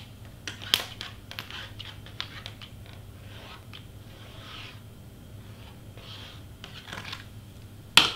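Cardstock being handled and pressed down on a cutting mat during hot-gluing: scattered light clicks and taps with a few short paper rustles, and two sharp taps near the end.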